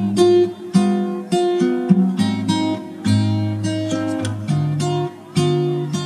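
Background music: an acoustic guitar playing a run of plucked notes, each starting sharply and fading.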